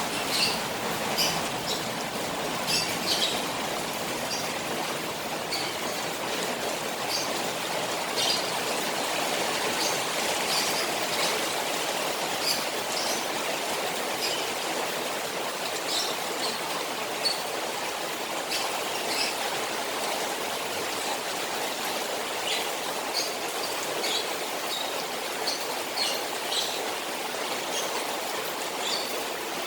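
Rain falling on a koi pond: a steady hiss of water with many short, scattered drips and splashes.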